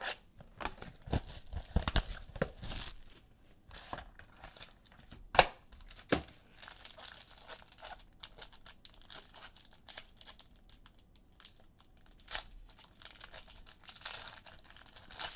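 Trading-card pack wrappers being torn open and crinkled while the cards are handled: a run of irregular sharp crackles and rustles, loudest a little after five seconds in.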